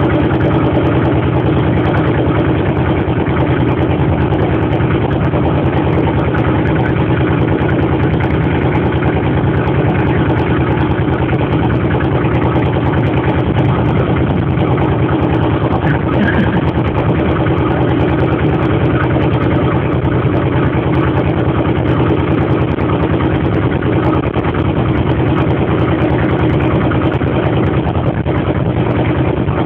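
Ferry boat's engine running steadily at an even speed, a continuous loud drone with no change through the crossing.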